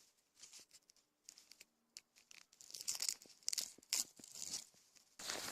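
Birch bark being torn and peeled off a tree by hand for tinder: a series of short, dry rips and crackles. Near the end a denser, continuous crunching starts suddenly.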